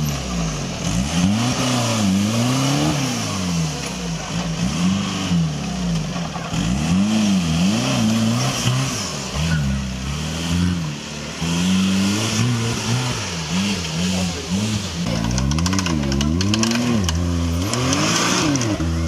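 Off-road vehicle's engine revving up and down over and over as it works through the course, with quicker throttle swings near the end.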